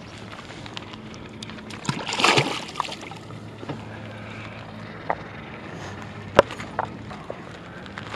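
A largemouth bass let go back into the lake, hitting the water with a splash about two seconds in. A few sharp clicks follow, over a faint steady low hum.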